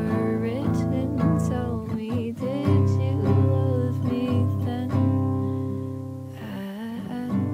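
Acoustic guitar playing chords under a voice singing a slow melody, with the voice pausing about six seconds in.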